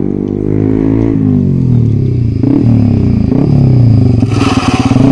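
Yamaha R15's single-cylinder engine through an aftermarket SC Project exhaust with no dB killer, very loud as the motorcycle rides up to and past. The engine note drops about a second in, then wavers up and down, and is loudest about four seconds in as the bike goes by.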